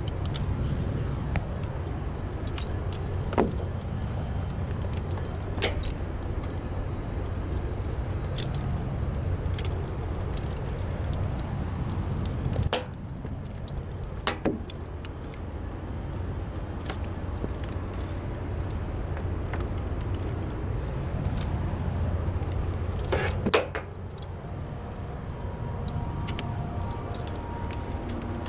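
Scattered metallic clinks and jingles of rope-access harness hardware, carabiners and rope devices knocking together, over a steady low rumble.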